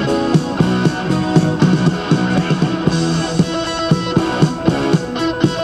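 Rock music with electric guitar and a steady beat playing through the speakers of an Emerson CTR-965 boombox.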